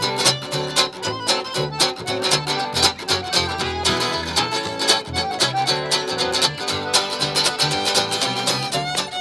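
Acoustic string band playing a fast instrumental break: fiddle carrying the melody over strummed acoustic guitar, accordion and plucked upright bass.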